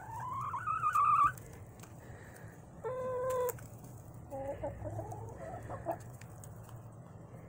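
Domestic hens calling close by. A loud rising, wavering call comes in the first second and a half, then a short steady call about three seconds in, then a run of short, soft quavering clucks.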